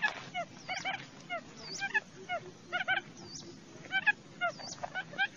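Wild quail calling: a steady string of short, hooked whistled notes, two or three a second, repeating without a break.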